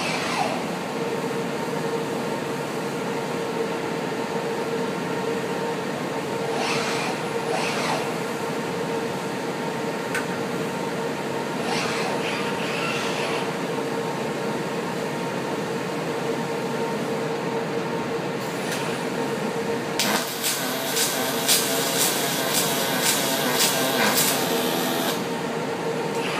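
Steady hum of a machine shop, then about 20 seconds in a robotic arc welder strikes and crackles for about five seconds before stopping.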